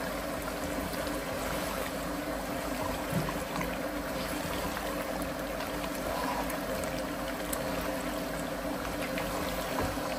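Lamb chop masala of yogurt and green chillies sizzling steadily as it fries in a pot on a high flame, with a steady hum underneath.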